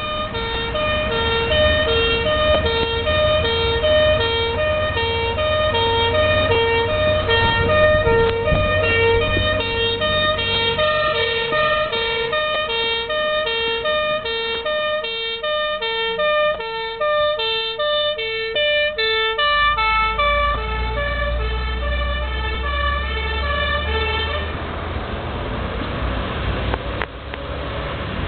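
Fire engine's two-tone siren alternating between a low and a high note, about one change a second, over the truck's engine. The siren stops about 24 seconds in, leaving the engine running.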